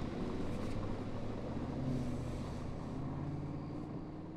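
Car engine and road noise heard from inside the vehicle: a steady low hum that tapers off near the end.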